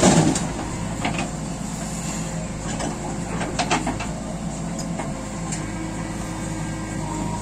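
Diesel engines of a JCB backhoe loader and a Swaraj 744 FE tractor running steadily while the backhoe works its arm and bucket. Right at the start comes the tail of a bucketful of soil pouring into the tractor's trolley. Short knocks and scrapes of the digging bucket come about one second and three and a half seconds in.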